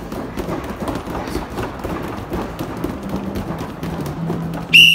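Rapid, irregular thuds of bare fists striking padded wall-mounted kick shields in a karate drill, over background music. Near the end a loud, high, steady tone cuts in.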